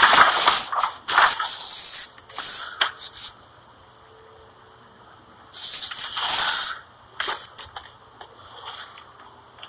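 Paper pages of a notebook rustling and rubbing as they are handled close to a phone's microphone. The rustling comes in several rushes about a second long, with a quiet gap of a couple of seconds in the middle.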